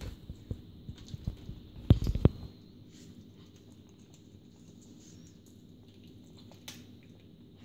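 Oriental Shorthair cats chewing raw chicken necks: wet crunching clicks and low knocks of meat and bone on a wooden floor, with a cluster of loud thumps about two seconds in. After that only faint, sparse clicks.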